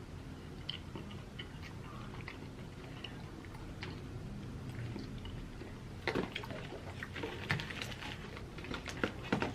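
Mouth and eating sounds of Popeyes fried chicken: faint small clicks at first, then crisp crackling bites and chewing from about six seconds in.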